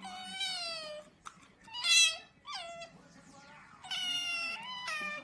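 A cat meowing repeatedly: about five separate meows, each falling in pitch, the loudest about two seconds in.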